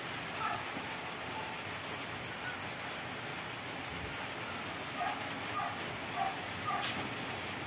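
Salmon-head sinigang broth simmering in an aluminium wok, a steady bubbling hiss. A few faint short chirps sound now and then.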